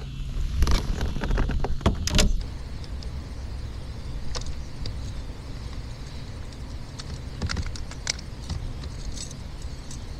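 Clicks, knocks and rattles of hands and gear being handled aboard a fishing kayak, busiest for about the first two seconds, then only scattered faint clicks.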